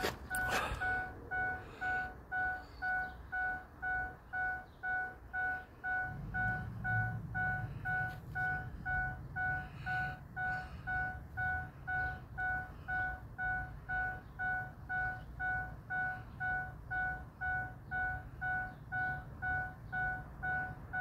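An electronic beep repeating steadily at one pitch, a little over two beeps a second. A low rumble joins underneath about six seconds in.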